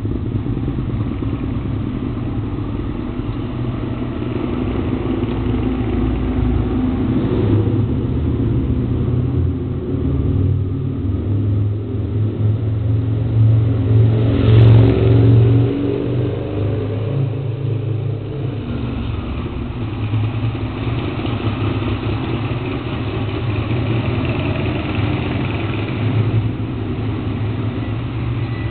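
Aprilia RSV 1000 Mille R's 998 cc V-twin engine running in an underground car park. It is revved up once about halfway through and then falls back.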